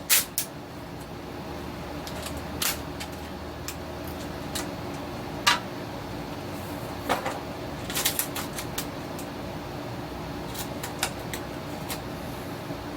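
Scattered light clicks and taps from hands working on a homemade craft with packing tape, over a steady low hum.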